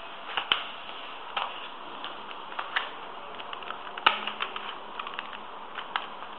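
Plastic clicking and clacking of a 3x3 Rubik's Cube's layers being turned by hand, in quick irregular bursts, with one sharper click about four seconds in.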